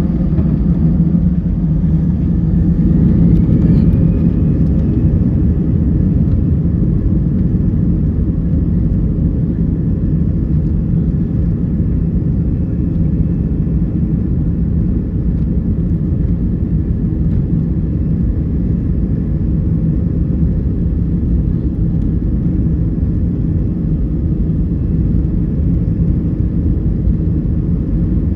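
Airliner cabin noise on the ground: a steady rumble and hum of the jet engines at low power, with a faint rising whine about two to four seconds in.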